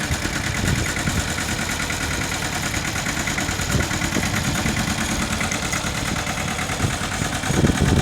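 Engine of a Mitsubishi tractor running steadily at an even pace, with a couple of brief low bumps, one about halfway through and one near the end.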